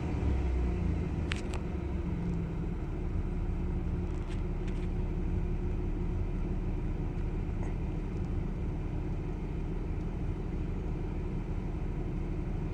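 Chevrolet Camaro RS 3.8-litre V6 idling steadily with a misfire, with a few light clicks early on and about four seconds in.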